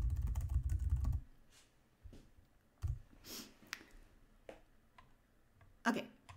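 Typing on a computer keyboard: a quick run of keystrokes for about the first second, then a few scattered single clicks.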